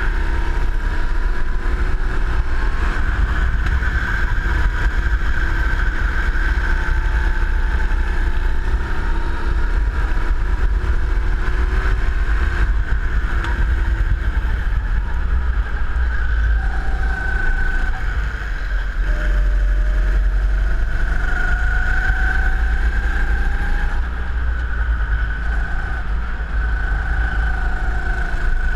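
Go-kart engine running at speed, heard from the driver's seat, its pitch rising along the straights and falling back into the corners, over a heavy low rumble of wind on the microphone.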